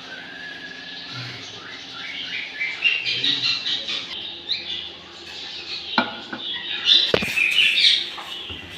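Birds chirping in quick, busy twitters, with a couple of sharp clinks of kitchenware about 6 and 7 seconds in.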